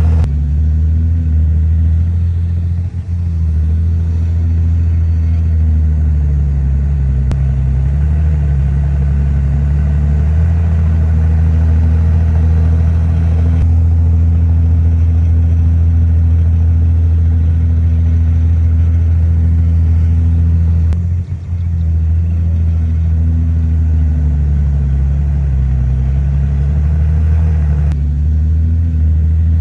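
Bulldozer's heavy diesel engine running loud and steady, its pitch sagging and recovering several times as the load on it changes while it pushes soil and stone.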